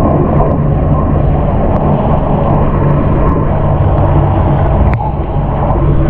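Tap water pouring into a filling bathtub, heard with the microphone under the water: a steady, muffled low rumble with a few faint ticks.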